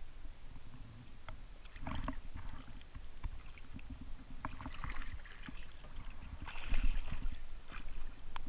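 Water sloshing and splashing against a camera held at the waterline, with irregular knocks and bumps from handling; the loudest splashing comes about seven seconds in.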